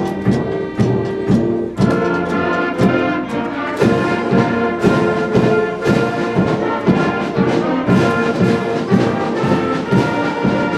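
A school concert band playing brass-led music with a steady beat, held notes over regular drum strokes.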